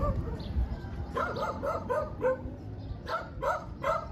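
A dog barking in quick short barks, a run of about five starting about a second in and another run of about four near the end.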